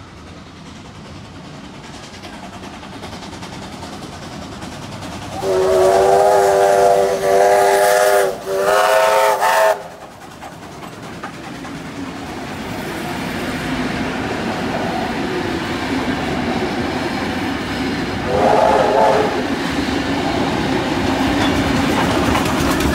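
Steam whistle of a Victorian Railways K-class steam locomotive sounding three blasts in close succession about five seconds in, the first the longest, then one short whistle about eighteen seconds in. Between and after them the steam train passes close, the rumble and clatter of its wheels on the rails growing steadily louder.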